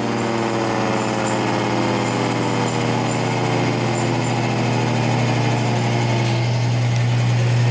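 Federal Signal Thunderbolt 1000 siren giving a short growl: its low, pitched tone slowly falls as the rotor winds down, over a steady low hum.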